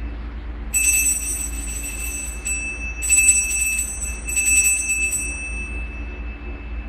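Altar bells (Sanctus bells) rung in three bouts of bright jingling at the elevation of the Host, marking the consecration.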